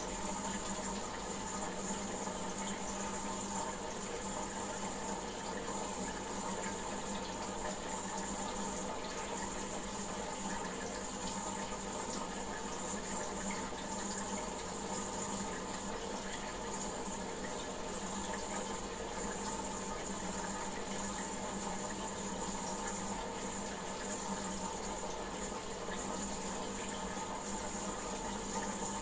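Steady running and bubbling water in a goldfish aquarium, the tank's water circulating without pause, over a low steady hum.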